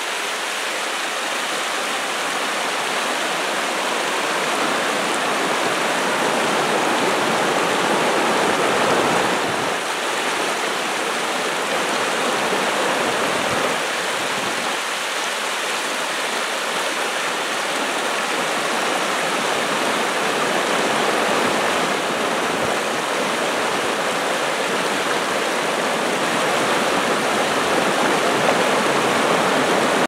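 Fast river rushing over rocks in whitewater rapids: a steady, unbroken wash of water.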